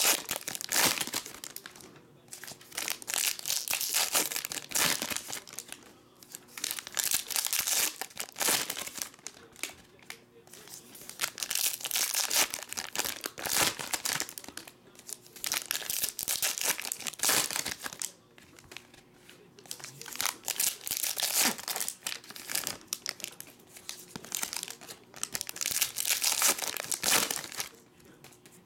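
Foil trading card pack wrappers being torn open and crinkled by hand, in repeated bursts with short pauses between them.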